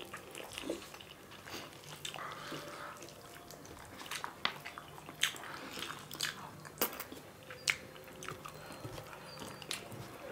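Two people chewing and smacking their lips as they eat rice and rajma curry with their hands, with irregular sharp wet clicks and smacks.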